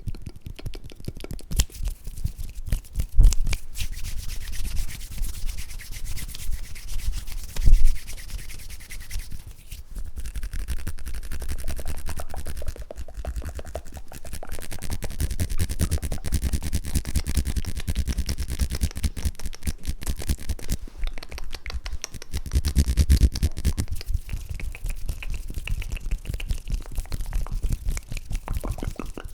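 Close-miked ASMR hand sounds: rapid rubbing and scratching of hands right at the microphone, with soft low thumps about 3 and 8 seconds in.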